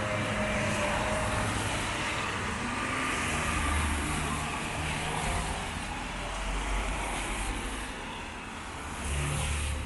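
Rainy street ambience: a steady hiss of rain with a motor vehicle's engine rumbling close by, swelling a few times, most strongly around four seconds in and again near the end.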